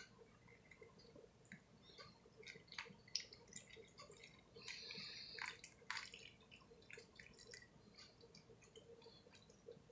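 Faint drips and small splashes of water being poured into a self-heating meal bag, with a short, denser trickle about halfway through.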